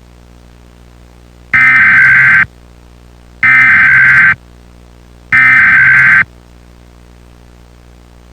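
Three short bursts of Emergency Alert System digital data tones, the SAME end-of-message signal that closes an alert. Each burst is a harsh, screechy buzz lasting about a second, and they come about two seconds apart over a steady low drone.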